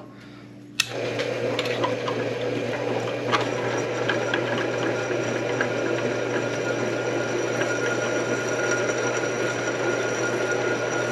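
Drill press running with a drill bit cutting into a broken-off bolt threaded in a finish-mower spindle hub, spotting a centre mark in it. The steady cutting noise starts with a click about a second in and holds steady, with a faint constant high tone over a low motor hum.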